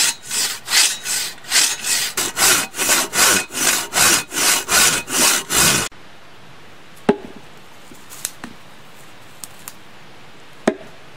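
Hand saw cutting through a fresh log in quick, rhythmic back-and-forth strokes, about three a second. The sawing cuts off abruptly about six seconds in, followed by a few isolated sharp clicks.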